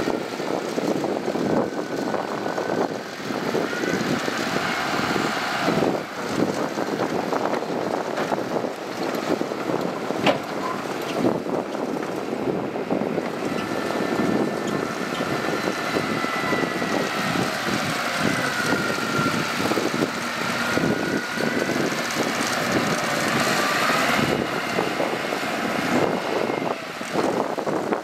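Mitsubishi BD2G II small bulldozer's diesel engine running steadily as it works, with a high wavering whine over it.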